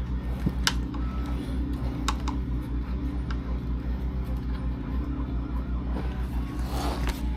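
Scattered light clicks and taps of small RC car parts and screws being handled on a workbench, with a short rustle near the end, over a steady background music bed.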